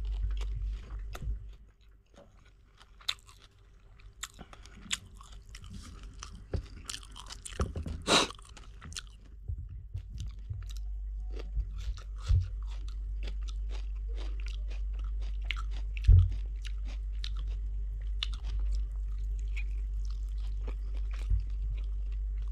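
Close-miked chewing and mouth smacks as fish curry and rice are eaten by hand, with many small crunches and clicks and a few sharper knocks, the loudest about two-thirds of the way through. A steady low hum runs underneath.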